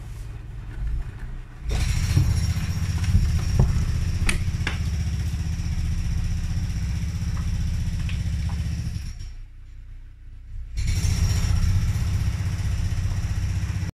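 Beko front-loading washing machine turning its drum. The motor starts about two seconds in, with a few knocks in the first few seconds. It stops for about a second and a half near the nine-second mark, then starts again, as the drum runs in bursts during the wash.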